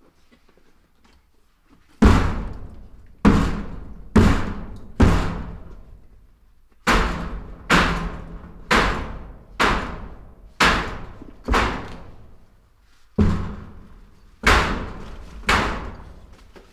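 Heavy blows struck with a hand-held tool, thirteen in three runs of four, six and three, each a sharp thud that dies away with an echo.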